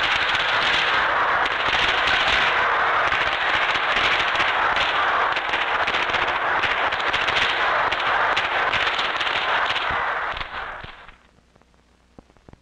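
Firecrackers going off in a dense, unbroken crackle of rapid pops, fading out about eleven seconds in to near silence.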